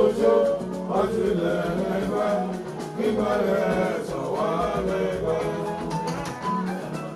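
Juju band music with a singing voice over guitars and percussion, playing steadily.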